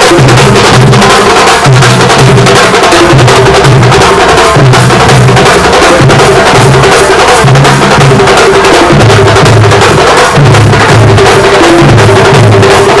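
Loud, continuous percussion-band music: fast drum strokes over a low pitched figure that repeats every second or so.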